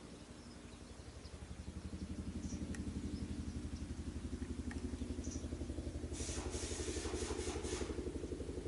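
An engine idling with a steady, fast-pulsing low hum that grows louder after about a second and a half, then holds. Brief rustling noises come in near the end.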